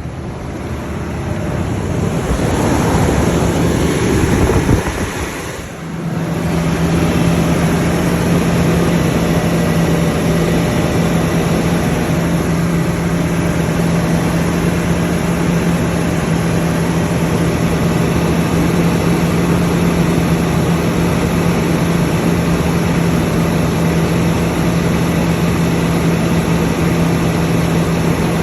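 Toyota 1UR-FE 4.6-litre V8 running, growing louder over the first five seconds, dipping briefly about six seconds in, then running steadily with a constant hum. The engine is said to have a knock.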